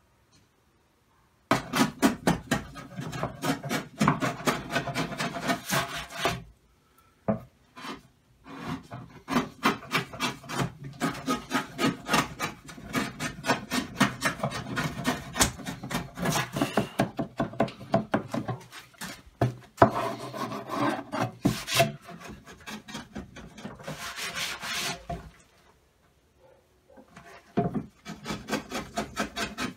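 Wide bench chisel paring along the end of a wooden table top to shape the tongue for a breadboard end: quick repeated scraping strokes of steel on wood, starting a second or two in, with a couple of short pauses.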